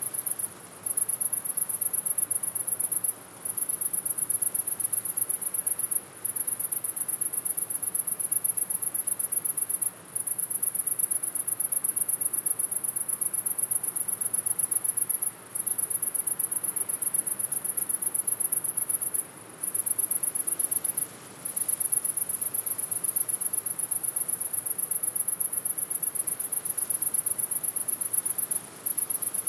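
Crickets chirping in a high-pitched, rapidly pulsing trill, broken by short pauses every few seconds.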